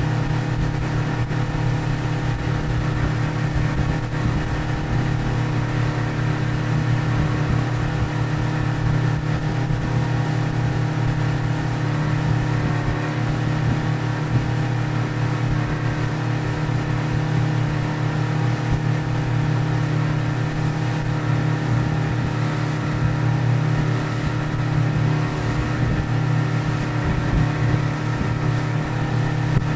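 Tritoon boat's outboard motor running at steady cruising speed, about twenty miles per hour, with an even, unchanging drone.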